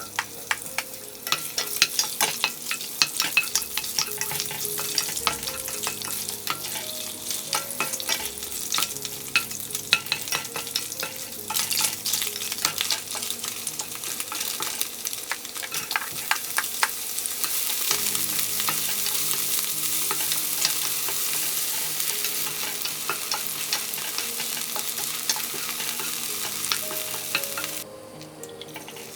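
Ingredients for egg fried rice sizzling in oil in a frying pan while being stirred, with many sharp clicks and scrapes of the spatula against the pan. The sizzle drops away abruptly shortly before the end.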